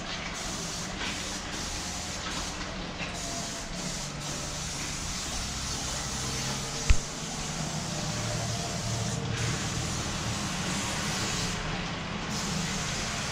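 Aerosol can of cooking spray hissing steadily as it is sprayed along the bottom edge of a snowplow blade, over a low hum. A single sharp click about seven seconds in.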